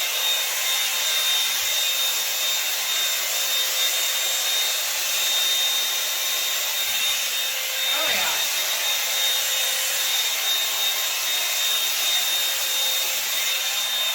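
Hot Tools 24K Gold one-step hair dryer brush blowing steadily: a rush of air with a thin high-pitched whine from the motor. It stops abruptly near the end.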